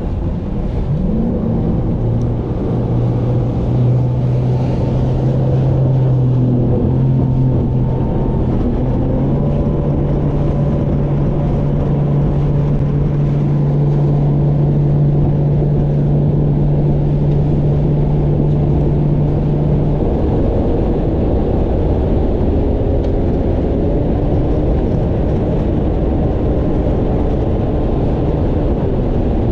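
Bass boat outboard motor running under way. Its pitch rises in the first two seconds as it accelerates, steps up again about ten seconds in and eases back about twenty seconds in.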